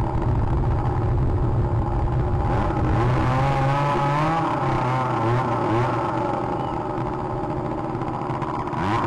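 A motor engine running with a steady low hum, its pitch rising and falling for a couple of seconds about a third of the way in.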